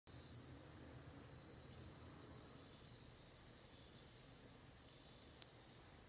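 Japanese bell crickets (suzumushi) singing: a clear, high ringing trill that swells about once a second and stops abruptly near the end.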